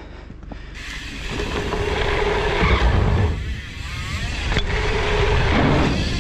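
Mountain bike rolling fast down a wooden drop-in and a dirt run-in: tyres rushing over packed dirt with wind noise on the GoPro's microphone, building about a second in. A sharp knock about four and a half seconds in.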